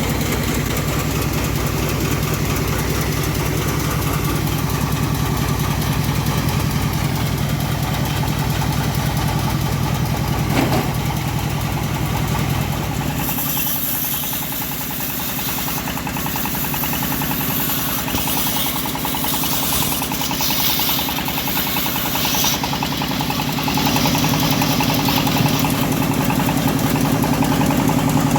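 Engine of a homemade bandsaw mill running steadily. About halfway through its note changes and a high hiss joins it for several seconds.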